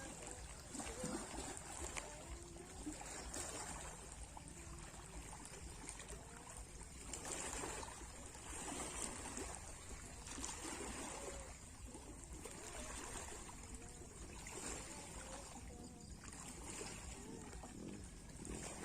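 Small sea waves washing in and lapping, swelling and fading every couple of seconds.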